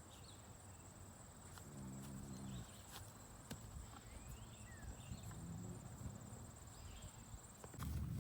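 Faint sounds of horses moving about on grass: scattered hoof clicks and steps, with a few faint short chirps and two brief low sounds. A thin steady high whine runs underneath, and a louder low rumble comes in near the end.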